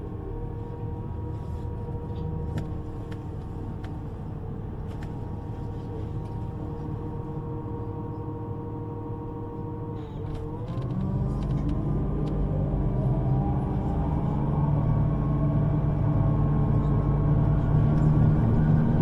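Electric train running with a steady multi-tone motor whine over a rumble. About ten seconds in, the whine dips briefly and then climbs in pitch while the rumble grows louder, as the train accelerates.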